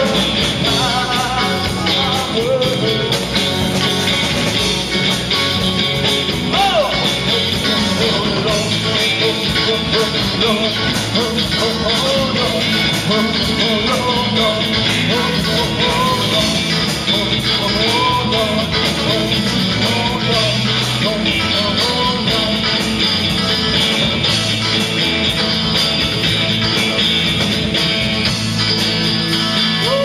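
Live rock-and-roll music played without a break: a man singing over an electric guitar, with a steady beat.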